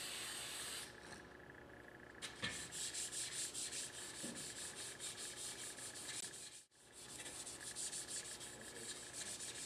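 A short hiss of TruStrip degreaser sprayed from an aerosol can, then a Scotch-Brite abrasive pad scrubbing an AR-15 buttstock in quick, rhythmic back-and-forth strokes, cleaning the surface before it is coated.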